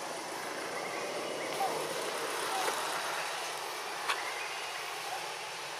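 Steady outdoor background hiss with a few faint short chirps, and a single sharp click about four seconds in.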